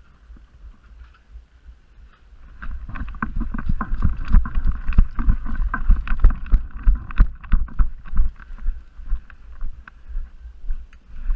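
Footsteps and rustling gear of a player moving on foot, picked up by a body-worn action camera, with a low wind rumble on the microphone. The thuds and clatter become loud and dense about two seconds in, then settle into a steady step rhythm of about two a second near the end.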